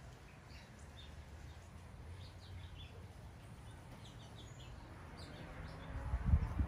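Small birds chirping now and then over a steady low outdoor rumble. A brief low thump, the loudest sound, comes near the end.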